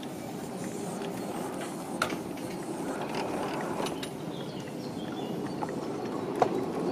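Ride-on miniature railway train rolling along the track: a steady rumble with a few sharp clicks, one about two seconds in and one near the end.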